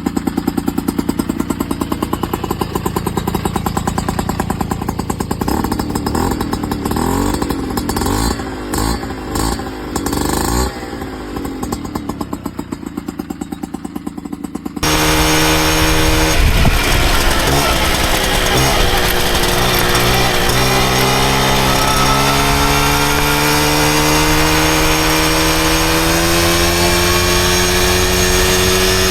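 Piaggio Ciao moped's small single-cylinder two-stroke engine, fitted with an aftermarket Giannelli exhaust, idling while it warms up, with a few brief throttle blips in the middle. About halfway through, an abrupt cut leads to the engine running louder at higher revs, its pitch slowly climbing.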